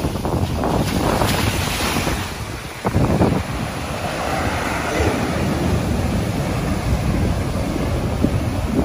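Heavy ocean surf breaking and washing in foaming around concrete breakwater blocks, with wind buffeting the microphone. A wave breaks loudly about three seconds in, after a brief lull.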